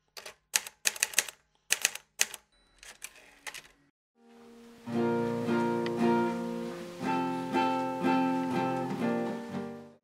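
A quick run of sharp clicks for about four seconds, then strummed chords on a plucked string instrument. The chords swell in and are re-struck about every half second until they cut off at the end.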